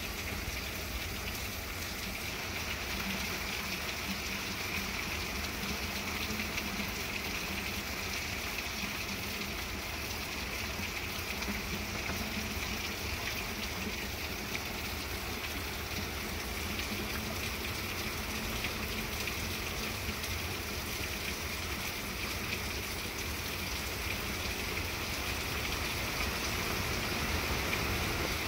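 Steady hurricane rain falling on trees and garden plants, an even hiss that grows slightly louder near the end.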